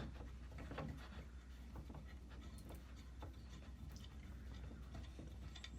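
Faint, scattered small clicks and taps from handling the Record No. 71 router plane's small metal parts, over a steady low hum.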